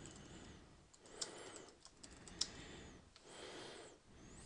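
Faint typing on a computer keyboard, with two sharper clicks about a second and two and a half seconds in.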